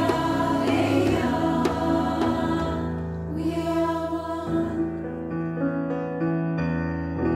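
Women's choir singing in harmony, holding long chords. About three seconds in, the sound grows softer.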